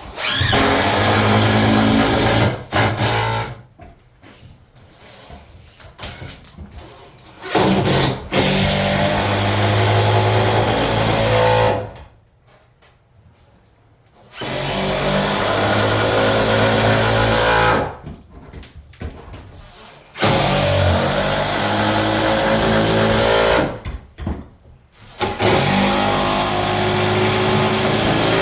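Power tool running in several bursts of a few seconds each, starting and stopping abruptly with short pauses between.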